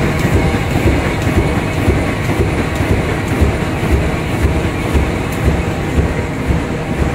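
Automatic flexo printing machine for corrugated cartons running, with its feeder taking in cardboard sheets: a loud, steady mechanical running noise with a low, pulsing rumble.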